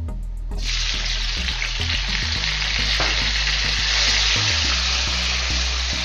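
Chopped tomatoes dropped into hot oil with frying onions in a pan. A loud sizzle breaks out about half a second in and keeps going as they are stirred with a wooden spatula.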